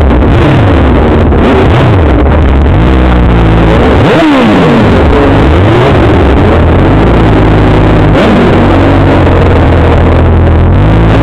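ATV engines at full throttle in a drag race, loud and distorted, the pitch climbing and falling over and over, then holding high and steady for the second half.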